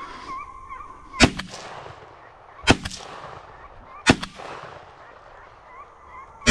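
Shotgun fired three times in quick succession, about a second and a half apart, each a sharp bang with a short echo trailing off; a fourth shot comes right at the end.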